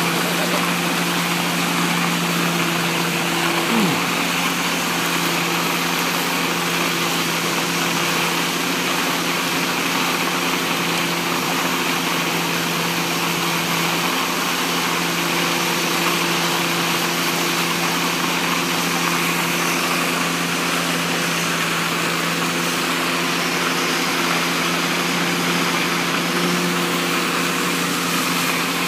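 Mulch blower truck running steadily: a constant engine-and-blower drone with a hum, over a rush of air and bark mulch blowing out through the hose.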